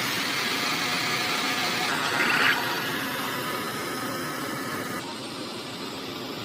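A small motor running steadily. The sound drops to a quieter level about five seconds in.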